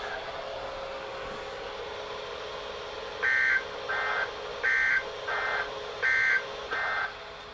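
Weather radio receivers sounding the EAS/SAME end-of-message data bursts that close a Required Weekly Test: six short, shrill two-tone digital bursts starting about three seconds in, alternating louder and softer. The pattern is two sets of three bursts slightly out of step. A steady low hum comes before them and continues underneath.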